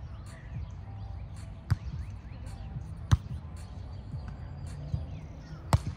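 Sharp impacts of a volleyball in play, a few hard slaps spaced a second or more apart, the loudest near the end, over steady low background noise.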